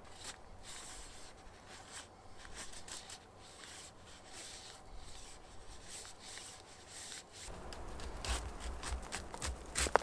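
A knife whittling wood: a run of short, irregular scraping strokes as shavings are cut. A low rumble comes in about three-quarters of the way through.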